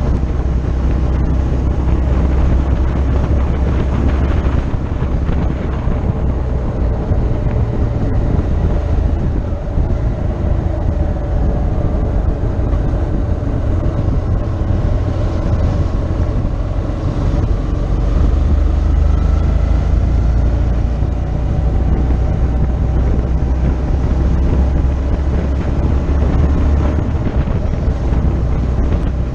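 Motorcycle engine running at road speed, heard from on the bike, under heavy wind rumble on the microphone. The engine pitch rises for a few seconds around the middle.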